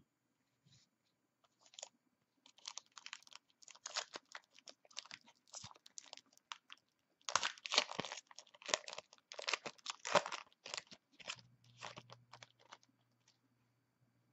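A plastic trading-card pack wrapper being torn open and handled: a dense run of irregular crinkling crackles, busiest past the middle and dying away near the end.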